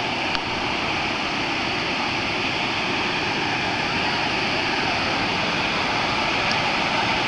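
Waterfall's water rushing in a steady, loud roar, without change.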